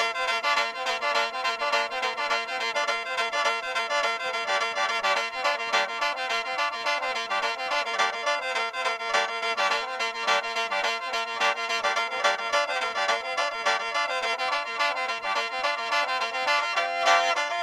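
Instrumental interlude of Isan mor lam music: a reedy, khaen-style melody over held drone notes, with a quick steady beat.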